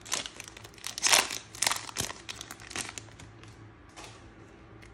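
Foil Pokémon booster pack wrapper being torn open and crinkled by hand, in crackly bursts that are loudest about a second in and die down after about three seconds.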